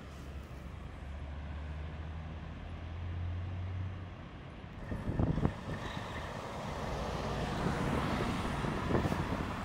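Diesel tractor-trailer moving slowly past: a low steady engine hum at first, then engine and tyre noise that grows louder as the truck comes close. A brief thump about five seconds in is the loudest moment.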